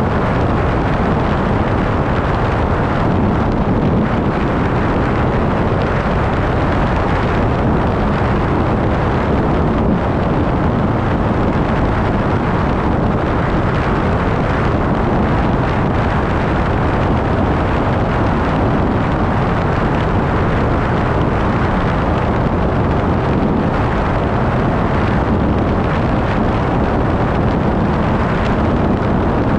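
Steady rushing road and wind noise from a vehicle travelling at highway speed, unchanging throughout.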